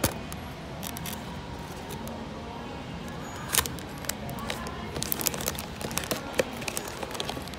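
Cardboard blind box and its wrapped blind bag being handled: scattered crinkles and taps, with a sharper click about three and a half seconds in and a run of small crinkles near the end.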